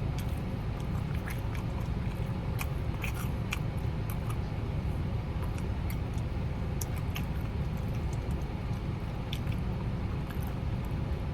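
Close chewing of crispy fried chicken, with scattered crunchy clicks over a steady low rumble.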